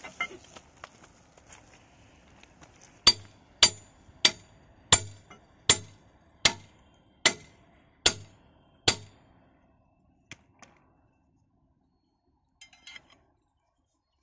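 Steel tools striking a railway track fitting: nine sharp, ringing metal-on-metal blows, about one every three-quarters of a second, then a few faint clinks. The fastening is stiff and jammed with dirt.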